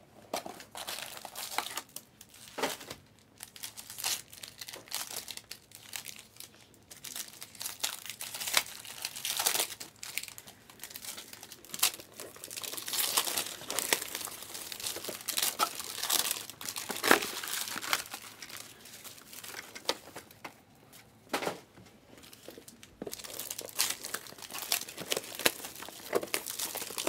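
Plastic trading-card packaging being torn open and handled: crinkling and tearing of wrappers, with irregular crackles and rustles.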